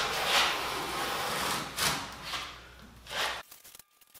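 A sharp wood chisel scratching along painted sheet steel, scribing a line in several drawn scraping strokes. The scraping stops about three and a half seconds in, leaving only faint light clicks.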